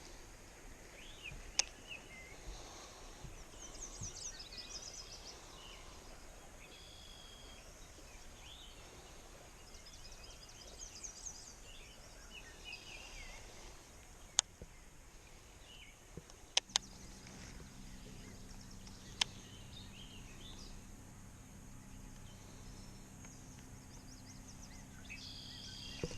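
Quiet outdoor ambience with small birds singing short trills and chirps, a few sharp isolated clicks, and a steady low hum that sets in a little past the middle.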